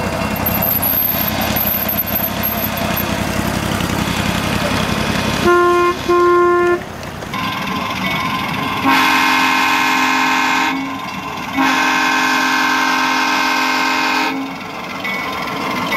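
Ride-on scale diesel locomotive's engine running steadily. About five and a half seconds in come two short horn toots, then two long horn blasts that each sound several notes at once.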